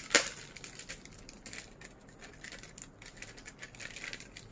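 Thin clear plastic bag crinkling and rustling as hands open it and work a hexagonal plastic figure stand out, with one sharp, loud crackle right at the start.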